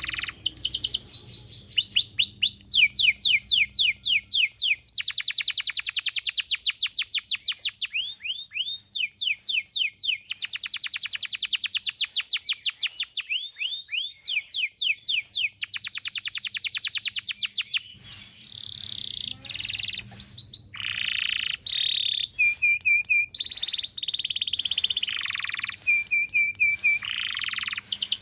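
Domestic canary singing a long song: fast trills of rapidly repeated, downward-sweeping notes, strung together in runs, then about two-thirds of the way through switching to more varied phrases with short, steady whistled notes.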